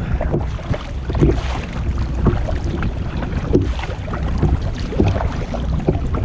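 Wind rumbling on the microphone over choppy lake water, with irregular splashes and slaps of waves against the kayak.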